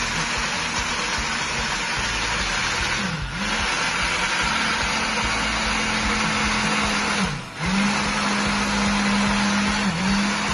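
Countertop blender with a single-serve cup running, blending strawberry, mango, milk and honey into a smoothie. Its motor slows briefly and spins back up three times, most deeply about seven seconds in.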